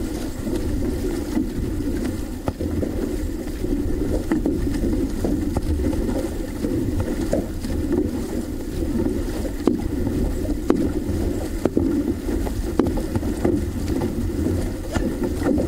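Water rushing along the hull of a six-person outrigger canoe (OC-6) as the crew paddles, with a low rumble of wind on the microphone and light knocks about once a second in time with the paddle strokes.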